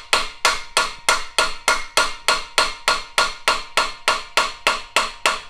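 Rawhide mallet tapping a brass trombone slide tube over a tight-fitting steel dent slug, about three even taps a second, stopping at the very end. The blows land on the ridges around a dent to soften it, and their solid ring is the sign of good contact between tube and slug.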